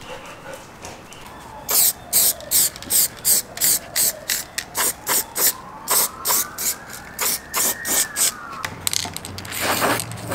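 Aerosol spray-paint can used in a rapid run of short bursts, about three a second, starting a couple of seconds in, with a longer burst near the end. The paint goes onto freshly drilled bare-metal holes to keep them from corroding. A faint tone rises and then falls behind the bursts.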